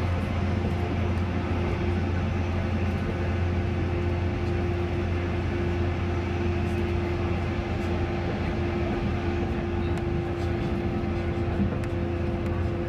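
JR 185 series electric train's traction motors running at a steady speed, heard from inside the car: a loud, even motor drone with a single tone held at one pitch over the rumble of the running gear.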